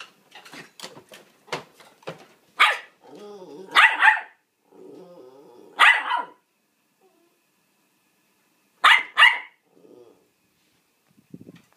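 Small dog barking in sharp single barks and quick pairs, with a low wavering grumble between some of them. It is demand barking: the dog wants to be let out of its wire playpen.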